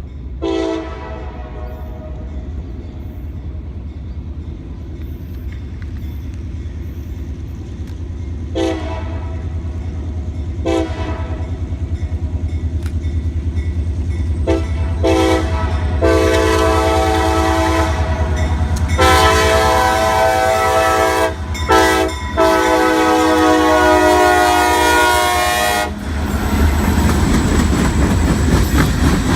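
Diesel locomotive on a CSX local freight train approaching with its engine rumbling louder and its multi-tone air horn sounding: a few short toots, then long, long, short, long, the grade-crossing signal. After the last long blast the train passes close by, with loud rolling wheel and rail noise.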